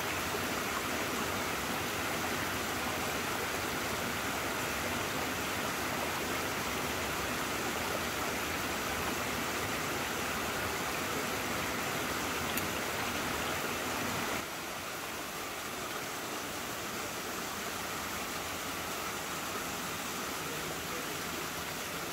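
Steady rush of running water from a mountain stream, even and unbroken, dropping slightly in level about two-thirds of the way through.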